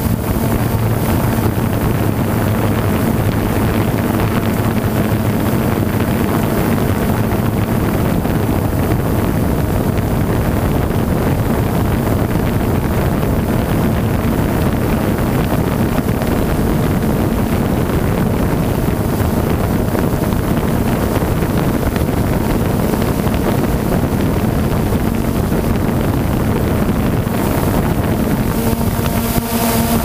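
DJI Phantom quadcopter's propellers running steadily, heard from the camera carried on it, with heavy wind rushing over the microphone. The rotor hum comes through more plainly near the end.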